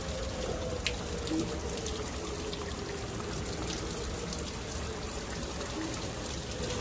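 Tornado warning siren sounding a faint, steady wail that slowly slides lower in pitch, with a weaker second tone beneath it, over a steady hiss with scattered ticks. The recorder calls this siren broken.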